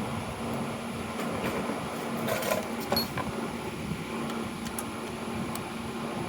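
Steady fan-like hum in a small room, with a few light clicks and clinks of tools and metal parts being handled as a starter motor is taken apart, a short cluster of them about two and a half seconds in.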